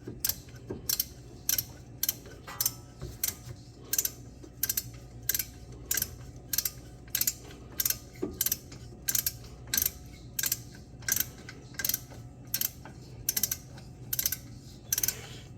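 Ratchet wrench clicking in steady, even strokes, about two to three clicks a second, while a brake caliper bolt is tightened. A low, steady hum runs underneath.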